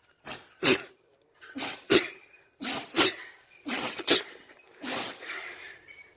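A pet sneezing over and over: a run of short, sharp sneezes and snorts, several coming in quick pairs.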